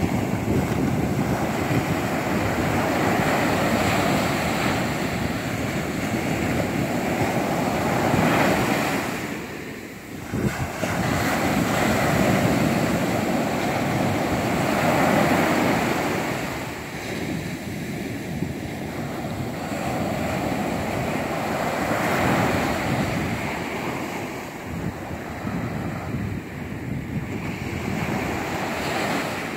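Ocean surf: small waves breaking and washing up a sandy beach, the rush swelling and easing every few seconds, with a brief lull about ten seconds in. Wind buffets the microphone throughout.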